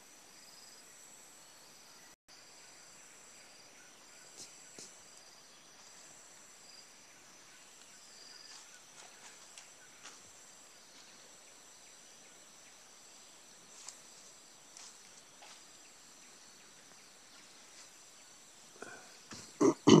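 Rainforest insect chorus: several steady, high-pitched insect drones going on together, faint under the forest's background hiss. Just before the end, a couple of loud thumps.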